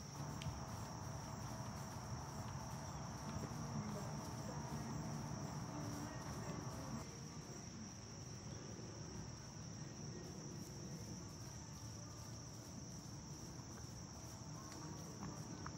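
Steady high chirring of crickets in the field, with a low background rumble underneath that eases about halfway through.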